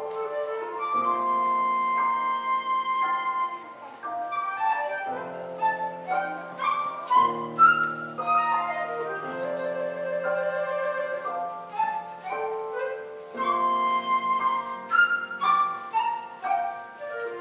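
Concert flute playing a melody of held and quickly moving notes over a lower, sustained accompaniment.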